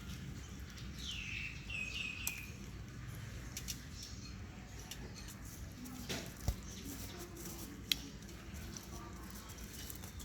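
A baby monkey gives a short run of high squeaky calls about a second in, the first one falling in pitch and the rest coming quickly after. Two sharp clicks follow later.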